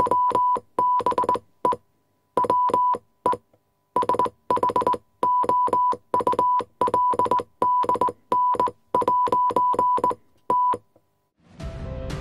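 Text-typing sound effect: quick runs of short clicking beeps at one steady pitch, broken by brief pauses. Near the end the typing stops and a swell of sound rises in.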